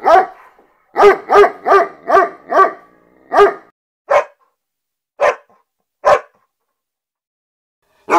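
A dog barking: a quick run of five barks about a second in, then single barks at wider and wider spacing, with a pause of about two seconds near the end.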